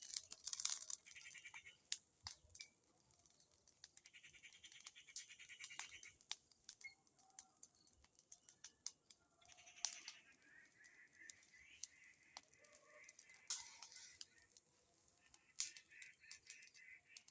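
Bonfire crackling faintly with irregular sharp pops and snaps, and a few short higher-pitched sounds lasting a second or so each.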